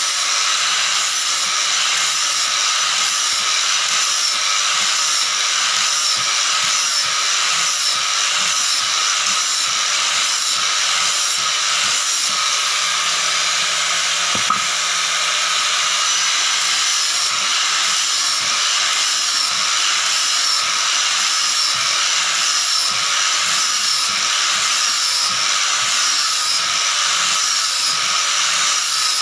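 Total electric angle grinder running steadily with a high whine, its abrasive disc worked over the face of a hardwood slab. One brief click comes about halfway through.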